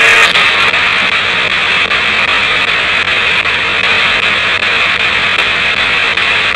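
Spirit box, a radio scanning through stations, putting out a steady hiss of static with brief broken fragments of broadcast sound.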